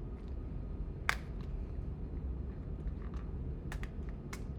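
A few sharp clicks and taps of small hard objects being handled, the loudest about a second in and a quick cluster near the end, over a low steady hum.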